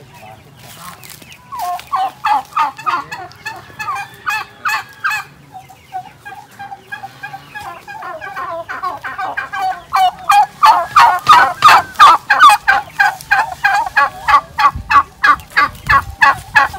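A flock of domestic turkeys calling in runs of quick, repeated notes. The calls come in a burst early on, ease off, then get louder and denser from about halfway through.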